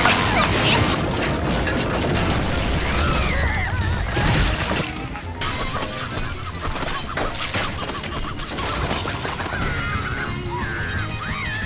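Cartoon soundtrack: music mixed with crashing and breaking sound effects, with high wavering squeals about three seconds in and again near the end.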